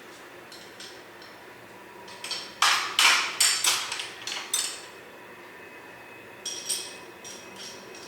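Metal hand tools clanking and clinking against each other and the car's underside: a burst of sharp, ringing clanks from about two to five seconds in, then a few lighter ringing clinks near the end.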